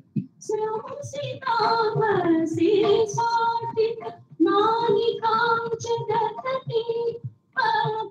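A high solo voice singing a slow song in long held phrases, with short breaths between them.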